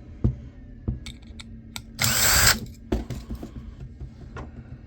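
Small electric screwdriver spinning once for about half a second, backing out a tiny screw from a laptop hard drive. Sharp clicks and knocks of the metal drive parts being handled come before and after it.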